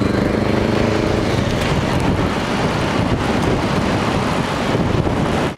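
Steady rush of wind on the microphone and road traffic noise, recorded from a moving bicycle on a highway shoulder. A low pitched drone fades out over the first second.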